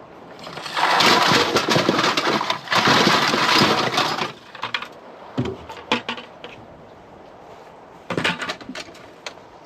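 Empty aluminum pop cans clattering and crunching together as a load of them is dumped, a dense rattle of about three and a half seconds, then a few separate clinks and a shorter rattle near the end.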